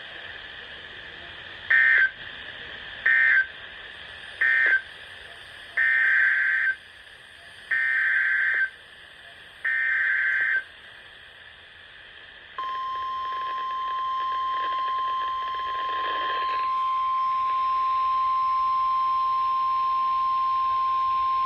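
NOAA Weather Radio Emergency Alert System tones: three short buzzing SAME end-of-message data bursts closing one warning, then three longer SAME header bursts, then the steady 1050 Hz weather radio alert tone held for about nine seconds, announcing the next flood warning.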